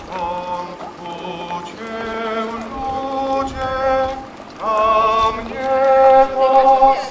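A slow religious hymn sung by procession pilgrims: a melody of long held notes in phrases, some with a slight waver.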